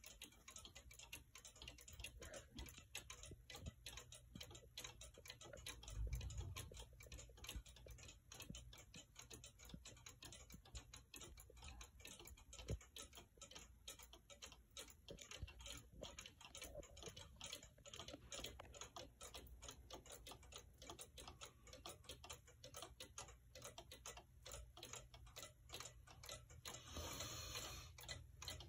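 Several weight-driven Black Forest cuckoo clocks ticking together, their pendulum escapements beating out of step in a faint, dense patter of ticks. There is a low bump about six seconds in and a short rustle near the end.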